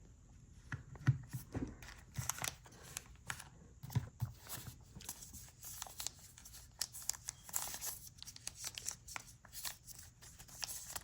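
Packaging being handled during an unboxing: a steady run of rustling and crinkling with many small clicks and taps.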